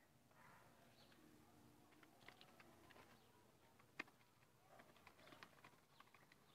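Faint, irregular clicking and tapping of Muscovy ducklings' bills pecking feed from a plastic tub, with one sharper tap about four seconds in.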